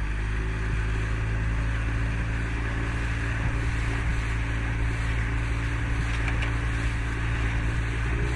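Dinghy outboard motor running steadily at cruising speed, a constant low engine drone with water and wind noise over it.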